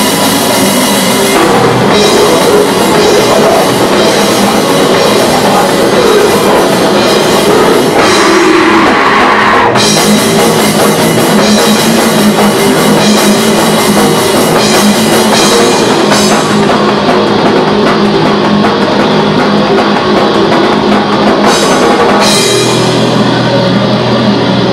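Live rock band playing loud: drum kit and electric guitar. A low note is held steadily near the end.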